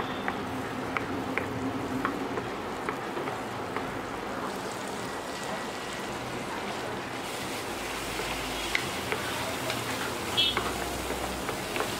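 Butter sizzling in a non-stick frying pan while a wooden spatula stirs and scrapes through it, with scattered small pops and taps over a steady hiss.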